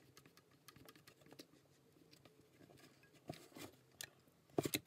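Faint clicks and taps of a one-handed bar clamp being handled and fitted around a wooden box, with a short run of louder, sharper clicks near the end.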